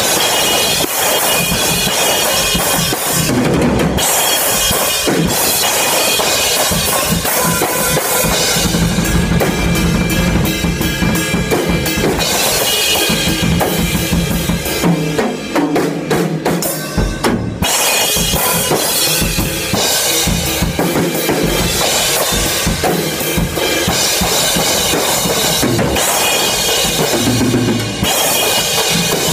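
Acoustic drum kit played in loose, improvised warm-up patterns: snare, bass drum and cymbals struck in dense, fast strokes, with a momentary break a little past halfway.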